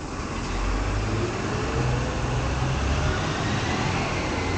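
A motor vehicle passing, growing louder within the first second, with a low rumble and an engine note that rises slowly in pitch.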